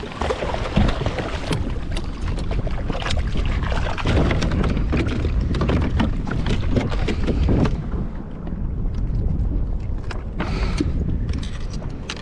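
Wind buffeting the microphone on a kayak at sea, with water splashing at the side as a fish is pulled to the surface. Scattered knocks and clicks come from the fish and gear being handled on the plastic kayak deck.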